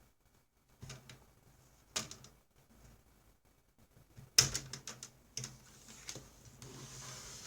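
Plastic screen bezel of a Lenovo ThinkPad X260 being pried off by hand, its clips snapping loose with a few sharp clicks, the loudest about four and a half seconds in. A soft scraping rustle follows near the end.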